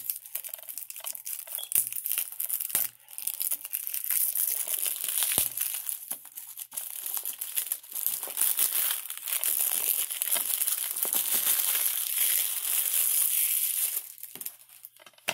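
Plastic shrink-wrap being torn and peeled off a DVD case: a continuous crinkling crackle with small clicks and tears. It dies down about a second before the end.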